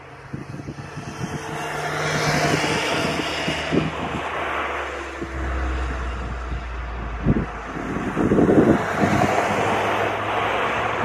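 Jet engines of an Airbus Beluga flying in low, a broad rushing engine sound that grows louder over the first two seconds and then stays loud. Wind gusts knock on the microphone a few times in the second half.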